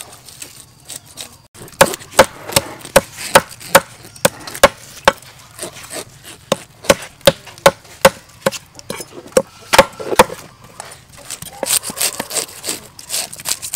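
Fish scales being scraped off a whole red tilapia with a flat scraper on a wooden chopping block: sharp scraping strokes about two and a half a second, with a short pause about halfway, then quicker, rougher scraping near the end.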